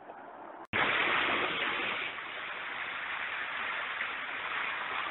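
Floodwater rushing and splashing in waves at the edge of a flooded street, an even rush that starts suddenly about a second in. It is loudest for the first second or so, then settles a little quieter.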